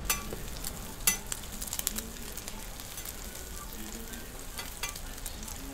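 Bread slices and egg omelets sizzling on a hot flat-top griddle, a steady hiss, with a few sharp clicks, the loudest about a second in.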